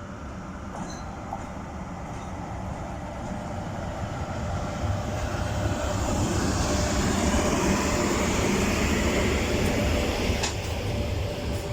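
EP1 electric locomotive and its passenger train pulling into a station at low speed. The rumble of wheels and running gear grows louder through the middle as it comes past and eases slightly near the end. A steady hum sounds through the loudest part, and a sharp click comes about ten and a half seconds in.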